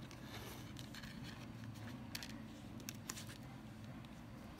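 Small clicks and taps as plastic strips and a small wooden block are handled and set against each other on a tabletop, scattered and irregular, over a faint low hum.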